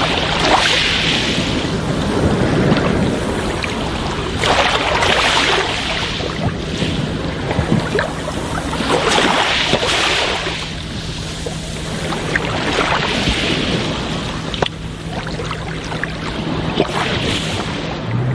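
Sea waves washing in, swelling and falling back every few seconds, with wind over the water. A faint steady low hum runs underneath.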